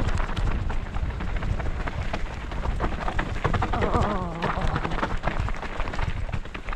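Wind buffeting the microphone over a steady rumble, with a dense rattle of clicks from tyres and the bike running over rough trail at speed. About four seconds in comes a short wavering pitched sound, like a voice.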